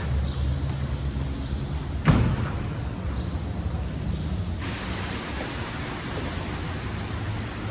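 A single sharp knock about two seconds in, over a steady low rumble and hiss.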